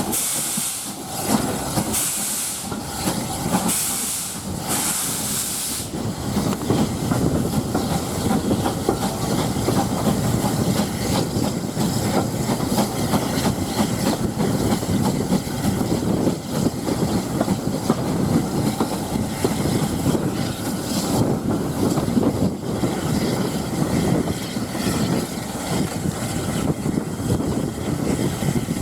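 SR Q Class steam locomotive 30541 getting its train under way: sharp bursts of steam hiss every second or two for the first several seconds, then the steady rumble of the train running.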